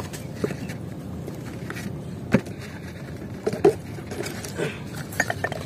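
A few light taps, clicks and rustles scattered over a steady low background rumble.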